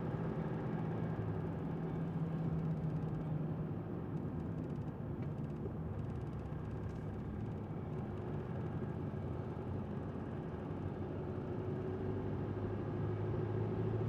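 Steady engine and tyre noise of a Mercedes-Benz V-Class van, heard from inside the cabin while it drives along: an even low hum with no sudden events.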